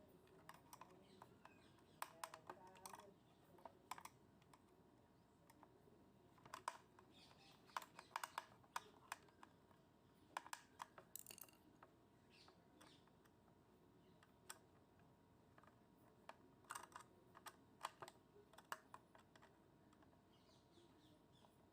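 Faint, irregular clicks and taps of small metal and plastic parts and tools handled while an electric iron is taken apart and its last nuts are removed. They come in short clusters with near-silent gaps between them.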